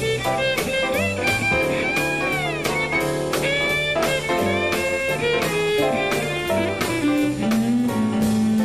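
Jazz violin solo, the bowed melody bending and sliding between notes, over a swinging rhythm section of upright bass, piano and drum kit keeping steady time.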